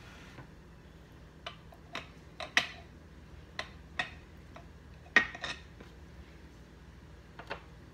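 Cookware being handled: a scattering of sharp metal clinks and knocks, as of a pot lid and utensils, loudest about two and a half and five seconds in.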